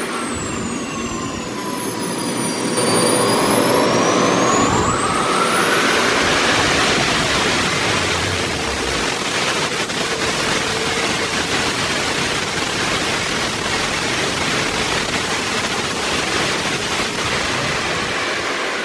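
Twin Swiwin 140 model turbine engines running together, a loud rushing jet noise with a high whine. The whine dips, then climbs as the engines spool up, and the sound grows louder about three seconds in.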